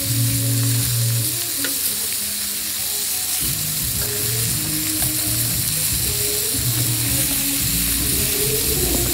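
Bratwursts sizzling on a hot flat-top griddle, a steady frying hiss, with music playing underneath.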